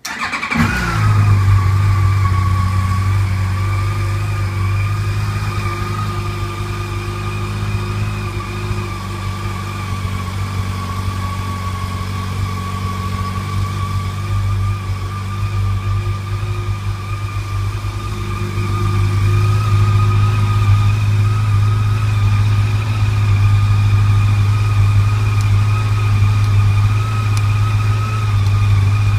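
Yamaha FJR1300's inline-four engine starting up and settling within the first second into a steady idle, getting a little louder about two-thirds of the way through.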